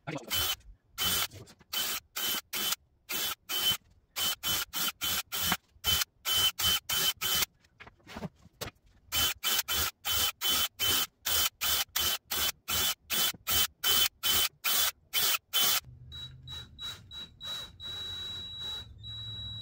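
Cordless drill pre-drilling pilot holes through wood strips with a small bit, in a rapid run of short bursts, two or three a second, each with a high motor whine. About 16 seconds in the bursts stop and a thin high whine starts and stops a few times, then holds.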